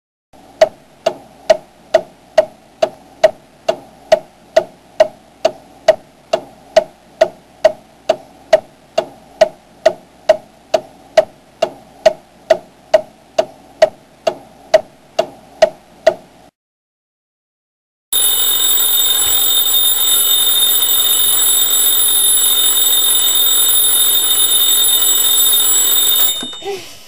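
A clock ticking evenly, a little over two ticks a second. After a short pause, an alarm clock rings with a loud, continuous, high electronic buzz, which cuts off near the end as a hand presses the top of the clock.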